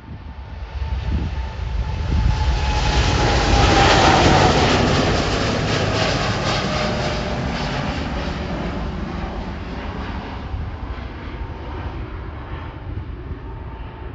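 Jet airliner passing close by: engine rumble and hiss swell to a peak about four seconds in, then fade slowly, with a whine falling in pitch as it goes past.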